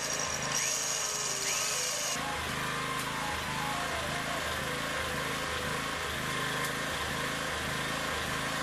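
Electric drill whining with a few rising pitch sweeps as it works the plastic strainer base of a submersible pump. It stops suddenly about two seconds in. A steady low rhythmic beat, about two pulses a second, runs under it and carries on to the end.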